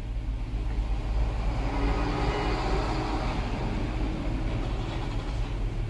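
Road-vehicle noise: a steady low hum with a rushing sound that swells and then fades over a few seconds, as of a vehicle passing by.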